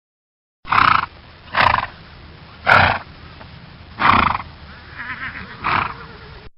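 Horse snorting: five loud, breathy blows through the nostrils, roughly a second apart, with a softer fluttering blow just before the last one.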